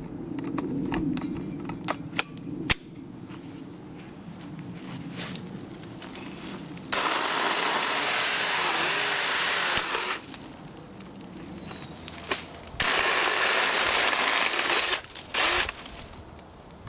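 Black & Decker Alligator battery lopper chainsaw running and cutting through branches in two bursts, one about three seconds long near the middle and a shorter one a few seconds later, each starting and stopping sharply. Between them, sticks click and crackle.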